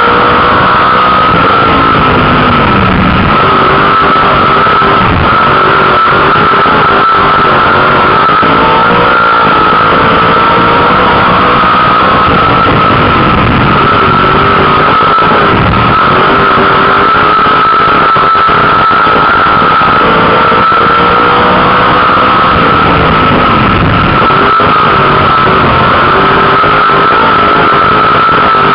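Onboard sound of a dirt-track sportsman car's 358 V8 running hard at racing speed, so loud the recording is overloaded and distorted. The engine note falls and climbs again a few times as the driver lifts for the turns and gets back on the throttle, over a steady high whine.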